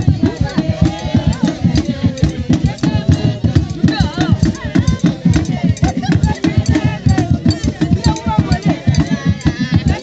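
Traditional Central African Pygmy group song: many voices singing together over a fast, steady percussion beat with rattles, accompanying a line dance.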